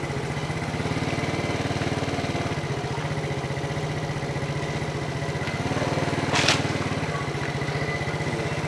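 Italika AT110 scooter's small single-cylinder four-stroke engine running steadily at low speed while ridden slowly over a dirt street, with a brief rush of noise about six and a half seconds in.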